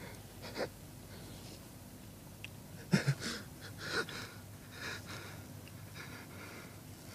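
A man weeping in grief, in broken, gasping sobs and breaths. The loudest catch comes about three seconds in.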